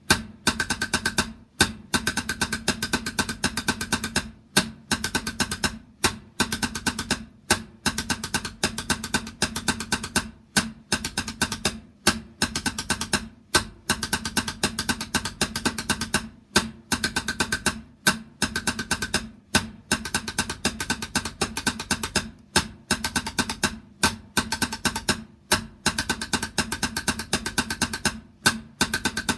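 Drumming: rapid strings of drum strokes in repeating phrases, each broken by a short pause about every second and a half.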